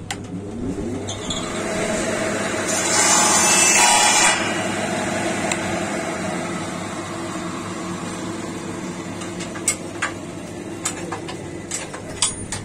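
A workshop power tool's motor starting and spinning up, then running steadily, with a louder stretch of cutting or grinding about three seconds in and a few light taps near the end.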